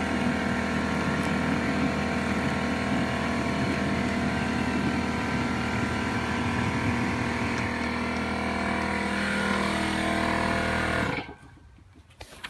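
Compressed-air foam-making rig (a Little Dragon aircrete foam generator run off an air compressor) running steadily while it pushes foam out of the wand, a loud even mechanical hum. It cuts off suddenly about eleven seconds in, followed by a single knock near the end.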